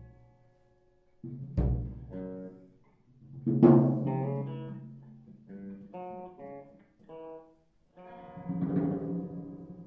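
Sparse live music from a drums-and-guitar duo: a few separate drum strikes, one deep and booming about a second and a half in and a louder, brighter one near the middle, between short phrases of plucked guitar notes, with brief pauses between.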